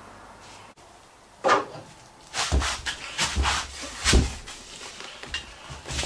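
Knocks, clanks and dull thuds of a bare car engine being manhandled and shifted by hand on a workshop floor. A sharp knock comes about a second and a half in, then a run of heavier thuds and knocks over the next few seconds.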